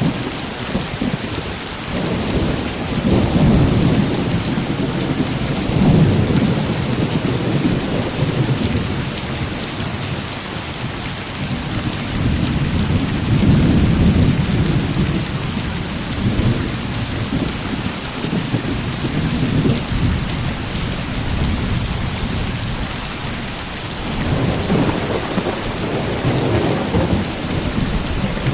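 Heavy rain falling steadily, with thunder rumbling low and rolling in long swells that rise and fade several times.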